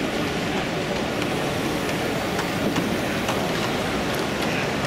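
Large-scale model goods train's wagons rolling along the track, their wheels clicking irregularly over the rail joints, over a steady background hubbub of the exhibition hall.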